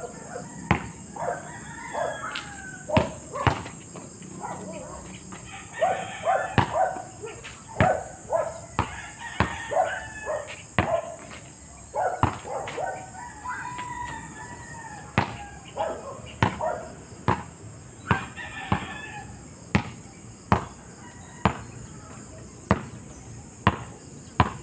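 A basketball dribbled on a hard outdoor court, one sharp bounce about every three-quarters of a second. A rooster crows in several bouts, and insects keep up a steady high buzz.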